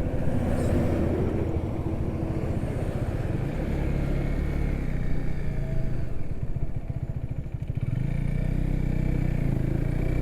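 Motorcycle engine running while riding, with a rush of wind and road noise. The engine eases off for a couple of seconds past the middle and then picks up again, as for slowing into and pulling out of a U-turn.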